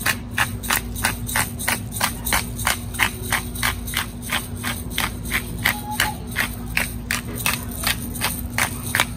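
Hand-twisted pepper grinder cracking peppercorns, a steady run of crisp ratcheting clicks about four times a second.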